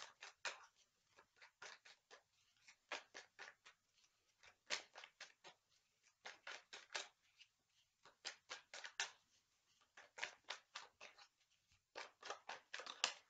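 Deck of tarot cards being shuffled by hand: faint, quick card clicks and flicks coming in runs of several at a time, with short pauses between runs.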